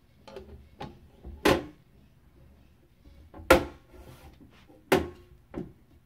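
Metal cover panel of an EPAX X1 resin 3D printer knocking and clanking against the case as it is fitted into place. There are three sharp knocks, each with a short metallic ring, and a few lighter clicks between them.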